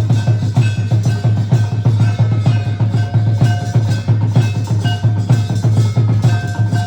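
Fast drumming on an even beat, with bells ringing over it in short, clear tones at several pitches.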